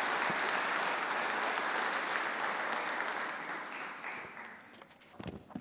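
Church congregation applauding, the clapping holding steady and then dying away over the last second or two, with a few short knocks near the end.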